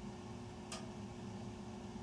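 Residential furnace running with a steady hum in the main duct, and a single sharp tick from the ductwork about three quarters of a second in.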